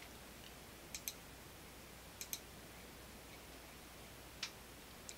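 Faint computer mouse clicks, three of them spread over the seconds, each a quick double tick of the button pressing and releasing.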